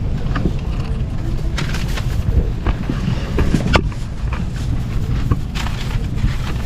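Steady low rumble inside a Shinkansen bullet-train carriage arriving at a station, with scattered clicks and knocks as passengers stand and handle their bags.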